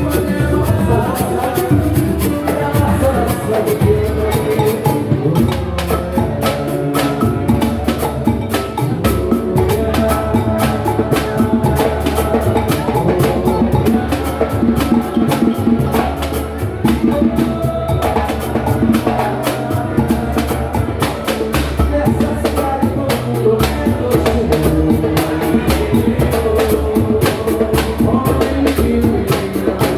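Live samba and pagode music: a band playing a steady, dense beat on drums and hand percussion, with pitched instruments or voices over it.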